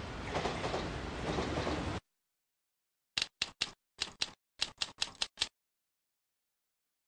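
Busy street ambience cuts off abruptly about two seconds in. After a second of silence comes a run of about ten sharp typewriter-key clicks over some two seconds: a typing sound effect as title text is typed out letter by letter.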